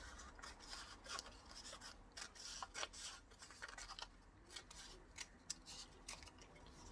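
Scissors cutting through folded paper: a run of quiet, quick snips with small pauses between them.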